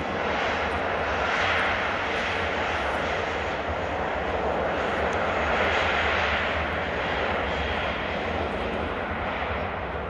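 Jet engines of an Airbus A321 rolling along a snowy runway: a loud, steady rushing engine noise over a low rumble, swelling about a second and a half in and again around five to six seconds.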